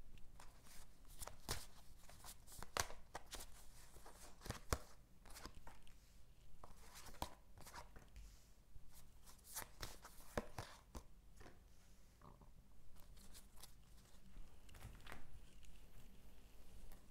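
Tarot cards being shuffled and handled by hand: a string of irregular sharp clicks and papery snaps.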